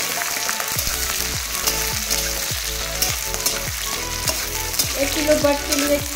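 Sliced onions sizzling in hot oil in an iron kadhai, being fried toward golden brown. A steel spatula stirs them, with frequent short scrapes and taps against the pan.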